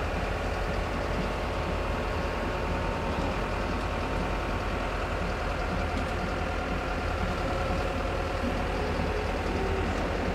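A large mobile crane's diesel engine running steadily with a low drone as it hoists a bascule bridge leaf.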